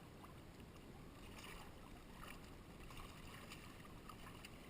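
Faint steady rush of flowing river water, with a few soft short splashes or knocks.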